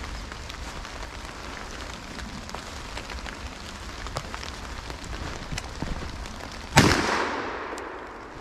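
Footsteps crunching through wet leaves with light rain pattering. About two-thirds of the way through comes a single loud gunshot that echoes and fades away over about a second and a half.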